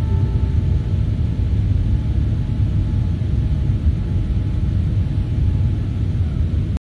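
Airliner cabin noise in flight, heard from a window seat: a steady, loud low rumble of the engines and airflow that cuts off suddenly at the end.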